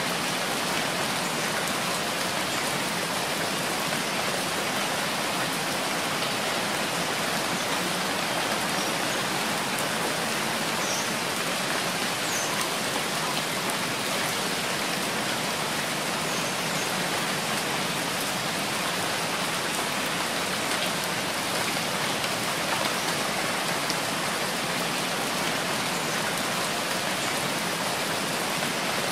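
Steady rain falling, a continuous even hiss of many drops with no change in strength.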